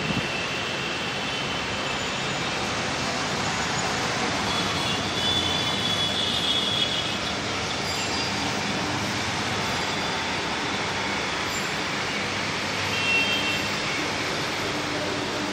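Steady road traffic noise, with a few brief high-pitched squeals about a third of the way in and again near the end.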